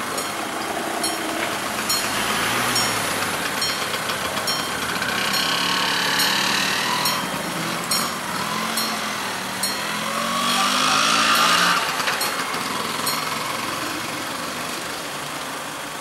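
Level crossing warning bell ringing in even strokes about twice a second as the barriers come down. A light engine passes, rising and falling in pitch and loudest about eleven seconds in.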